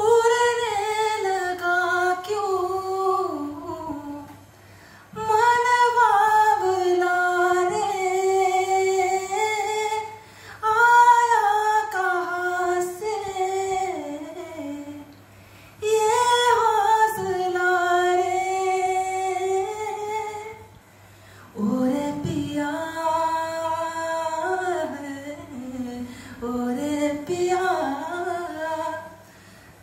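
A young man singing a Hindi song unaccompanied, in five long, high-pitched phrases with short breaks for breath between them. A faint steady low hum runs underneath.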